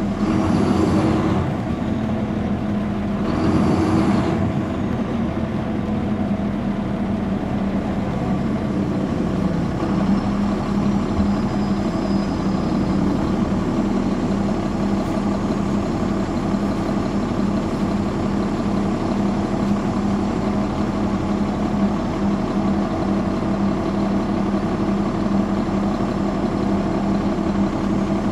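Caterpillar C13 ACERT diesel engine of a NABI transit bus idling steadily, its pitch holding level. Two short bursts of hiss come in the first few seconds.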